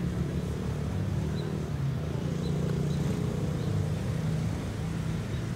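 Longtail boat engine running at a steady speed, a continuous low drone.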